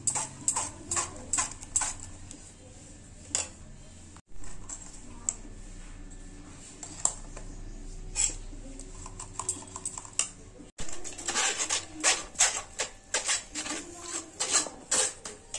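Metal spoon scraping and clinking against a stainless-steel mesh strainer while tomato purée is pressed through it. Quick scrapes and taps come in two busy runs, with a quieter stretch in between.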